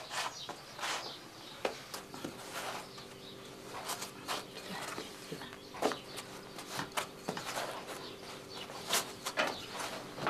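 Hands working bread dough on a cloth: a run of soft pats, taps and knocks as the dough is pinched off into balls and shaped. A faint steady hum joins in about two seconds in.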